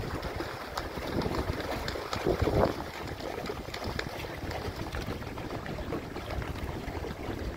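Black swans splashing as they run across the water flapping to take off, over a steady trickle and gurgle of water, with a louder splash about two and a half seconds in.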